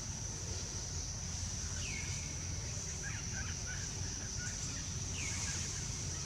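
Tropical forest ambience: a steady high-pitched insect drone, with two short falling bird chirps about two and five seconds in and a few softer chirps between them.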